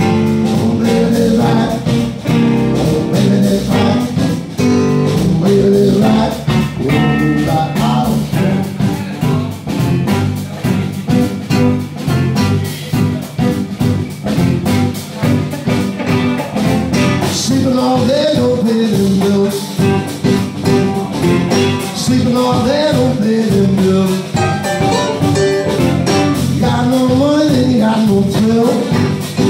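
Live rock band playing: stage keyboard, electric guitar, bass guitar and drums, with a man singing at times.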